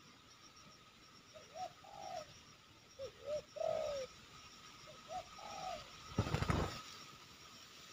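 Spotted dove cooing in three short phrases of rising-and-falling coo notes. About six seconds in comes a brief, loud flurry of wing flapping.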